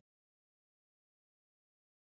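Complete silence: the sound track is muted, with no sound at all.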